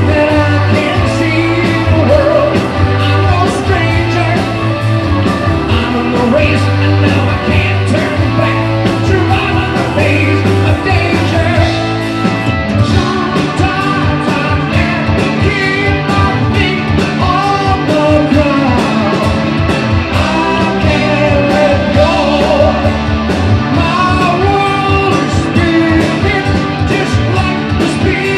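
Rock band playing live with lead vocals, electric guitars, bass and drums, heard through the hall's PA.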